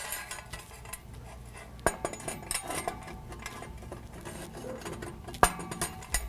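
Metal clinking and clanking as an exhaust tailpipe and its clamp hardware are handled and fitted into place, with two sharper knocks, about two seconds in and near the end, that ring briefly.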